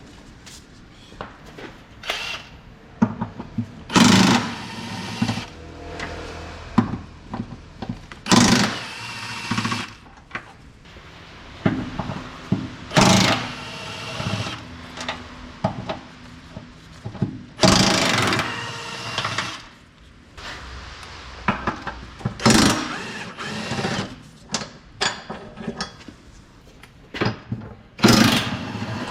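Workshop tool noise under a car: short bursts of a tool running, about every four to five seconds, with clicks and knocks of metal parts in between.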